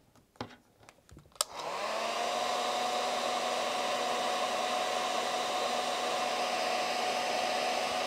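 Electric heat gun shrinking heat-shrink tubing on a speaker-cable conductor: after a few light handling clicks it is switched on with a click about a second and a half in, its fan spins up with a rising whine, then runs steadily with a blowing hiss and a steady whine.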